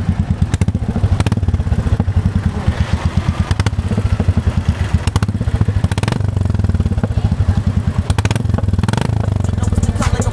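Royal Enfield Classic 350's single-cylinder engine idling through a Globe Exploder aftermarket exhaust, with the dB killer fitted. It gives a rapid, steady thump of exhaust beats.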